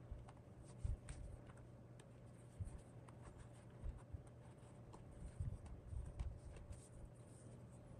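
Faint clicks, light scratchy taps and a few soft bumps from small keyboard parts being handled during assembly, over a steady low hum.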